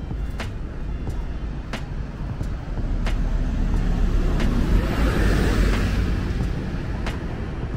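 A city bus passing close by on the road, its engine and tyre noise swelling to a peak about five seconds in and then fading, over a steady low traffic rumble.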